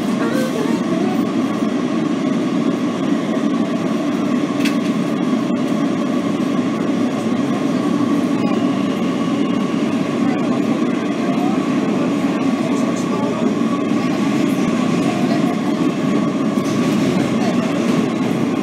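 Kawasaki R160B subway car running steadily, heard from inside the car: a constant rumble of wheels on rail with a steady high hum over it and a few light clicks.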